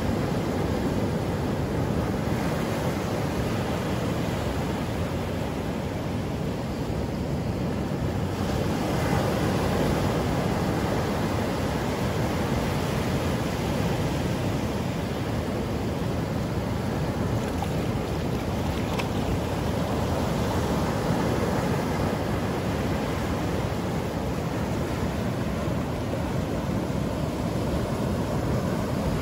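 Sea surf washing onto the beach: a steady, dense noise of breaking waves that swells gently now and then, with wind rumbling on the microphone.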